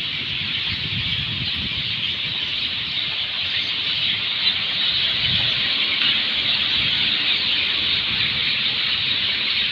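A large flock of birds chirping all at once, a dense, continuous high-pitched din with no single call standing out. A low rumble sits underneath.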